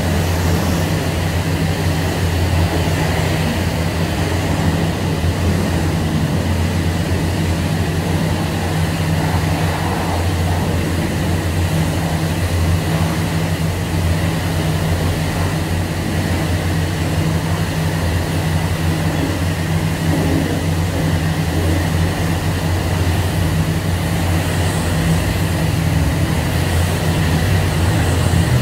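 Steady low hum of self-serve car-wash machinery running, over an even hiss of water spraying in the wash bay.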